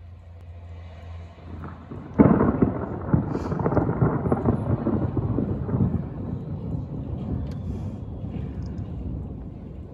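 Thunder: a sudden loud clap about two seconds in, followed by a rumble that slowly fades away.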